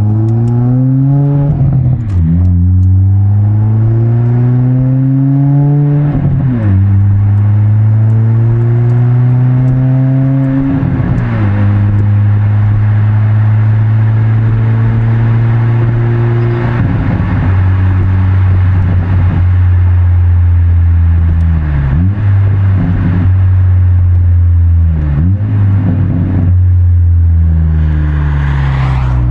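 Honda Civic Si's 1.5-litre turbocharged four-cylinder running through a MAPerformance race exhaust, pulling up through the gears with three quick shifts in the first dozen seconds, each a rise in revs and then a sudden drop. It then cruises at steady revs with a few brief lifts off the throttle near the end.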